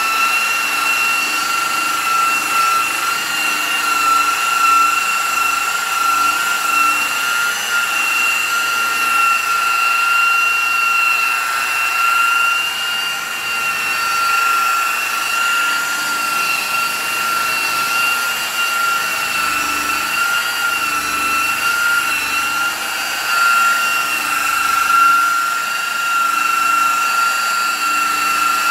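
DeWalt high-speed electric buffer with a wool pad running at a steady speed, a high steady whine, while it polishes heavy cutting compound into a wet-sanded plastic headlight lens.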